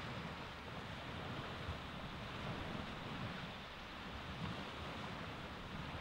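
Baltic Sea waves washing onto a beach, a steady surf noise, with a low rumble of wind buffeting the microphone.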